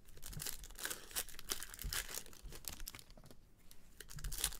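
Foil trading-card pack wrapper crinkling and tearing as gloved hands open it, a run of quick crackles, loudest near the end.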